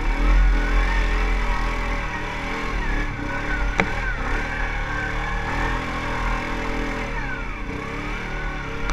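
ATV engine running under load, its pitch rising and falling as the throttle is worked, over a heavy low rumble. A single sharp knock about four seconds in.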